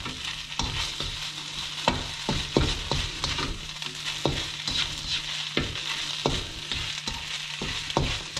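Fried rice sizzling in a nonstick pan on a gas burner as a spatula stirs and scrapes it, with irregular sharp taps of the spatula against the pan about once a second.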